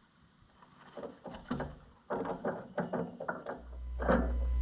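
A ratchet tie-down strap being cranked tight over logs on a trailer: a quick, irregular run of clicks and clacks, with a brief pitched squeak near the end.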